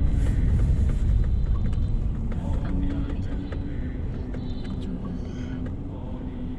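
Low rumble of a Mercedes-Benz car's engine and tyres heard from inside the cabin while it drives slowly, growing quieter toward the end.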